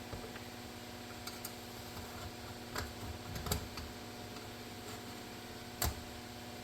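A few scattered light clicks and taps of small parts and tools being handled, the loudest a little before the end, over a faint steady hum.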